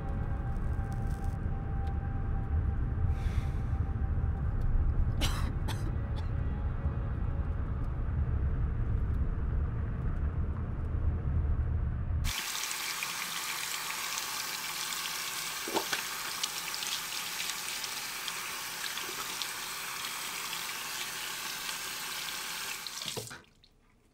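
A low, steady rumble, then, after an abrupt change about halfway through, water running steadily as from a tap, cutting off suddenly just before the end.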